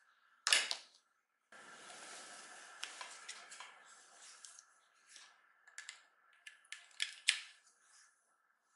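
A phone charger and USB cable being handled by gloved hands: a sharp knock about half a second in, a stretch of rustling, then a series of light clicks and taps from the plug and adapter.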